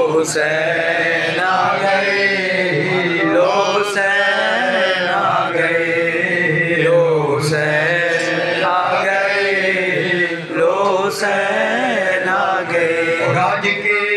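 A man chanting an Urdu manqabat, a devotional poem in praise of Imam Husain, into a microphone, drawing out its words in long, wavering melodic lines.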